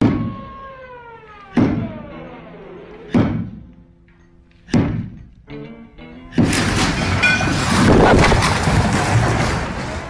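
Music with struck notes about every second and a half, each falling in pitch. About six seconds in, a loud sustained crash and rumble begins as a mud-brick wall collapses.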